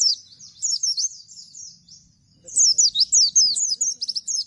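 Bustomi-type pleci (white-eye) singing in fast runs of high, thin, sweeping whistled notes. The song is softer and sparser in the first half, pauses briefly, then breaks into a loud, rapid burst about two and a half seconds in. This is the rattling 'nembak' (shooting) song style that bird-keepers prize.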